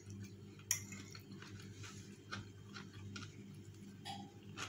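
Metal fork clicking and scraping on a ceramic plate while cutting into cornflake-crusted chicken: scattered light clicks, one sharper about a second in, over a faint steady low hum.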